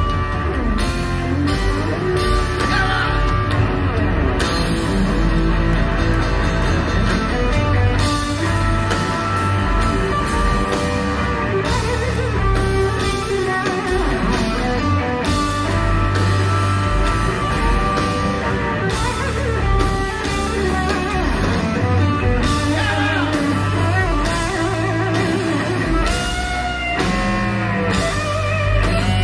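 Live rock band playing loud and without a break: electric guitar over bass and drums, with a male lead vocal coming in near the end.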